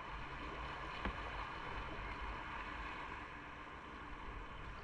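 Steady wind rush and road noise from a moving motorcycle, with a brief click about a second in.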